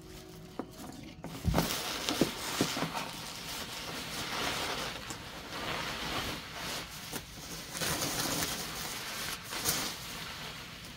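Bubble wrap and plastic packing rustling and crinkling as it is handled and pulled about in a cardboard box, with a dull thump about a second and a half in.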